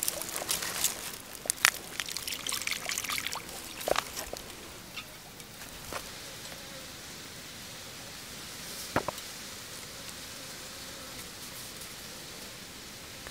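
Small splashes and trickling water as a fishing hook is dipped and moved about in duckweed-covered pond water, in a cluster of clicks and drips over the first few seconds, with one more click about nine seconds in. A steady outdoor hiss continues after the splashing stops.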